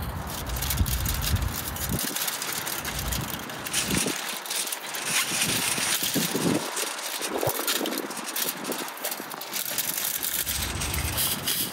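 Gloved hands peeling and cutting yellow onions on a wooden board: dry, papery onion skins crackling and rustling, with the crunch of onion being cut and handled.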